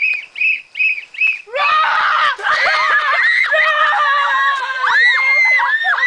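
A run of short high-pitched squeaks, about two a second, then from about a second and a half in several voices screaming together.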